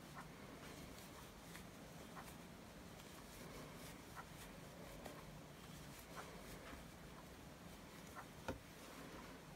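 Near silence, with faint scattered ticks and rustles of a metal crochet hook and yarn being worked by hand, and one sharper click near the end.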